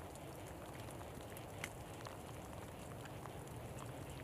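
Quiet outdoor ambience in a winter storm: a steady low rumble with scattered faint ticks, one a little louder under two seconds in.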